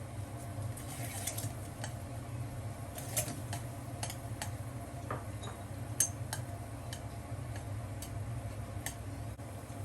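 Scattered light ticks and clinks of cookware and utensils, with two sharper clicks, over a steady low hum.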